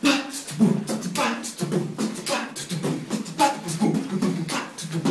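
A person beatboxing: a steady, rhythmic beat of kicks and snares made with the mouth and voice.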